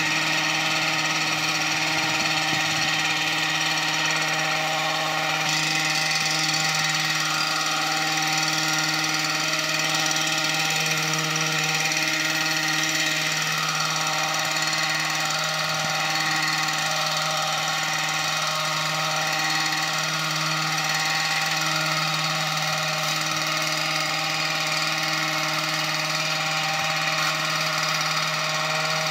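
Hedge trimmer running at a steady, constant high pitch as it cuts shrubs.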